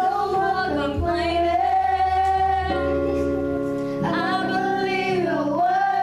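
Children singing into handheld microphones, a girl's voice leading with long held notes that glide between pitches.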